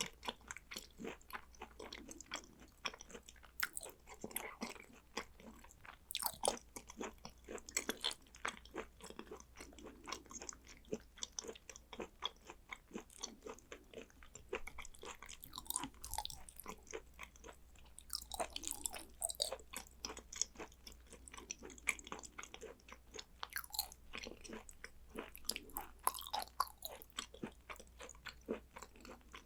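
Close-miked chewing and wet mouth sounds of a person eating raw beef and sea urchin roe: a steady run of quick smacking clicks, several a second.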